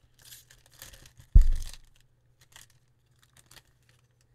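Plastic cellophane wrapper of a trading-card cello pack being torn open and crinkled by hand, in short crackly bursts over the first two seconds, with a dull thump about a second and a half in; a few faint crackles follow.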